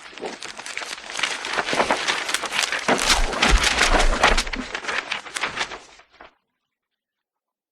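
Irregular clicks, knocks and rattles of hard parts being handled, with a few heavier thumps in the middle, stopping abruptly about six seconds in.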